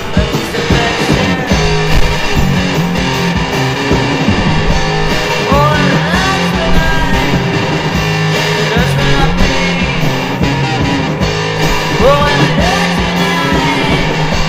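Rock music: guitar over a repeating bass line and drums, with sliding high notes about six and twelve seconds in.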